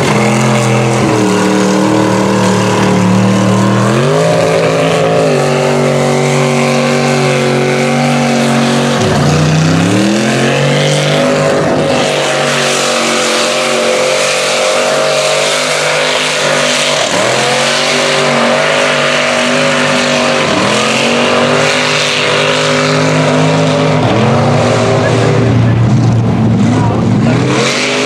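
Lifted mud truck's engine running hard on the throttle as its big tires churn through deep mud, the engine note climbing, holding and falling again several times, over a steady wash of spraying mud and water.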